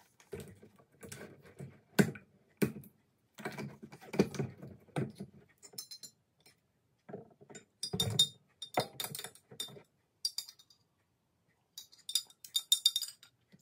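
Kitchen handling sounds: knocks and clicks of plastic caps and containers being opened and set down on the counter, then quick runs of a metal spoon clinking against a drinking glass as a drink is stirred.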